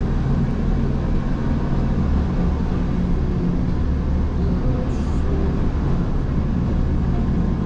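Gornergrat Bahn electric rack-railway train moving slowly out of the station: a steady low rumble and hum from its motors and running gear.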